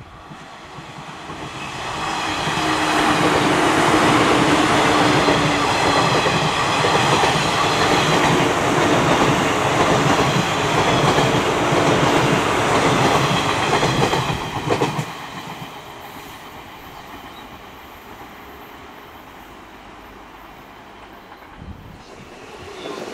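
JR 185 series electric train passing close by: the sound swells over the first few seconds, the wheels clatter over the rail joints for about ten seconds, then it drops off abruptly about fifteen seconds in as the train goes by, leaving a fainter rumble.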